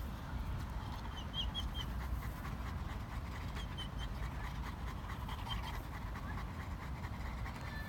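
Dogo Argentino and Cane Corso panting steadily, with a few faint high chirps now and then.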